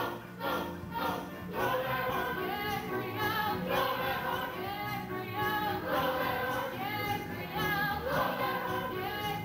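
A stage chorus of many voices, mostly female, singing a show tune together over instrumental accompaniment.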